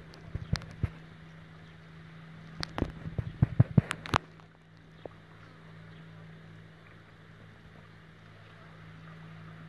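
Steady low hum of a small motorboat's engine running out on the water. Two clusters of sharp knocks and crackles on the microphone break in, in the first second and again from about two and a half to four seconds in.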